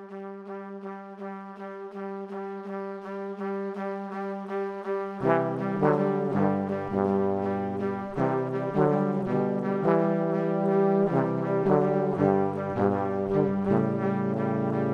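Instrumental background music: a steady pulse of repeated notes, with a lower part coming in about five seconds in and filling out the sound.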